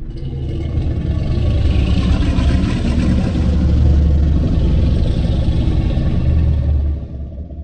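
A Godzilla sound effect: one long, deep, rough rumbling sound that swells up out of silence, holds for about seven seconds and then fades away near the end.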